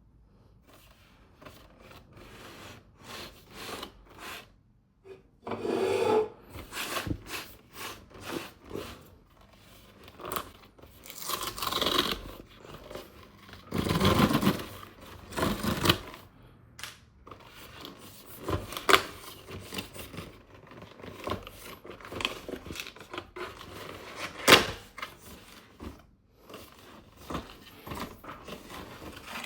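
Toy packaging being handled and opened by hand: irregular scraping, rubbing and tearing of cardboard and plastic, with sharp clicks in between.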